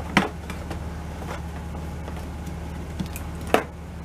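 Latches of a black plastic hard rifle case snapping open as the lid is freed: two sharp clicks, one just after the start and a louder one near the end, over a steady low hum.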